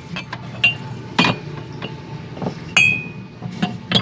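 Drinking cups clinking and knocking against each other and the shelf as they are shifted around in a cupboard: a string of irregular knocks, a few with a short glassy ring, the loudest a little before three seconds in.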